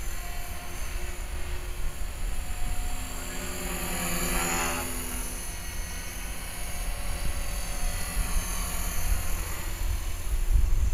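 HK-450 electric RC helicopter in flight: the steady whine of its motor and rotor, shifting in pitch as it manoeuvres and growing louder about four to five seconds in as it passes closer. Low wind rumble on the microphone near the start and end.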